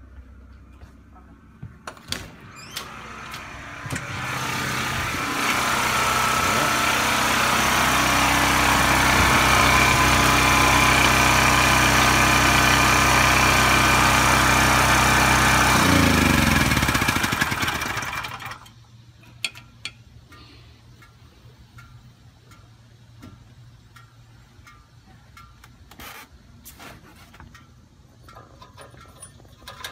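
Duromax XP4850EH portable generator's engine, running on propane, growing louder over the first few seconds and then running steadily. About 16 seconds in it is shut off and winds down, its pitch falling until it stops.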